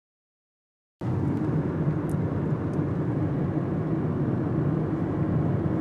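About a second of silence, then steady road and engine noise heard from inside a moving car.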